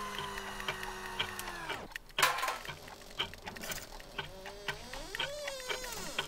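Foley of a clock-filled workshop with an automatic can-opening machine: a steady motor whine that winds down about two seconds in, a sharp clatter just after, and regular clock ticking throughout. Near the end a creaking tone slides up and back down.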